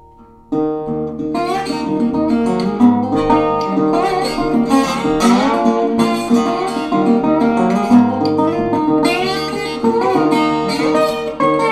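Metal-bodied resonator guitar played solo, a fast plucked blues line over a repeated low note, with several notes gliding up and down in pitch. It comes in suddenly about half a second in, after a ringing chord has faded.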